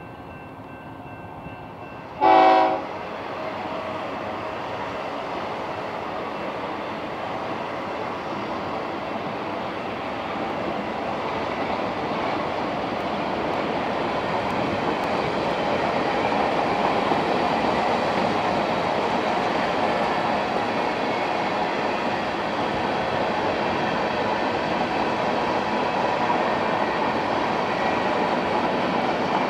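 Freight locomotive horn sounds one short blast about two seconds in. Then a long freight train of autoracks and covered hoppers rolls past, its wheels running on the rails with a steady noise that grows louder over the first half and then holds.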